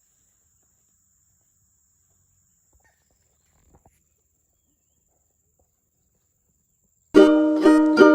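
Near silence for about seven seconds, then plucked-string background music starts suddenly near the end with strummed chords that ring and die away.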